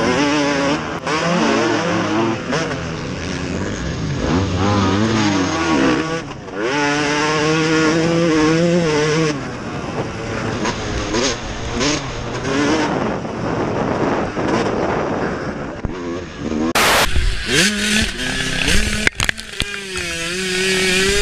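Motocross dirt bikes racing, their engines revving hard with the pitch rising and falling through throttle and gear changes. About seventeen seconds in, the sound turns closer and rougher: a single bike heard from onboard, with knocks and rushing noise over the engine.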